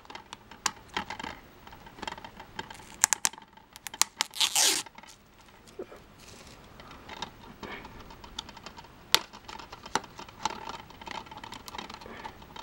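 Fingernails picking and scratching at the plastic seal on a DVD case, with scattered clicks and scrapes of plastic. There is a short, louder tearing sound about four and a half seconds in.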